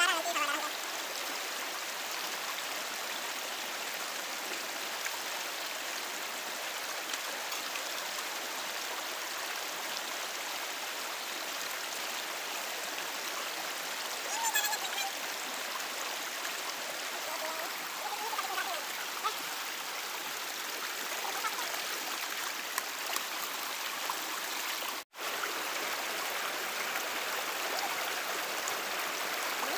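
Steady rushing of a flowing stream, with a few faint snatches of voice. The sound drops out for a split second about three-quarters of the way through.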